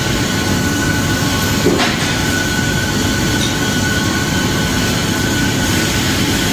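Hyd-Mech H-14A horizontal band saw running and cutting through a bundle of metal stock: a steady mechanical noise with a thin high whine above it. A brief sharp clink about two seconds in.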